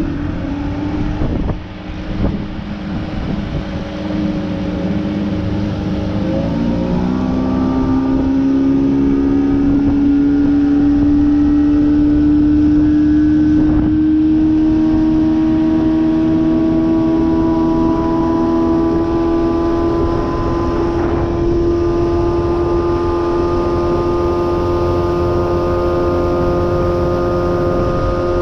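Outboard motor on a small bass boat throttling up about six seconds in, its pitch rising, then running steadily at speed with the pitch creeping slowly higher.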